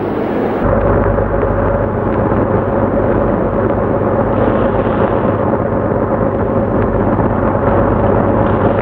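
Loud, steady rumbling noise with no rhythm or tune, growing deeper about half a second in.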